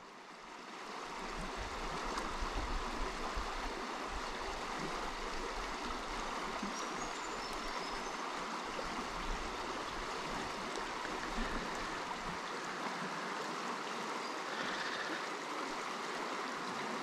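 Steady rush and ripple of river water flowing over rocks in shallow riffles, fading in over the first couple of seconds.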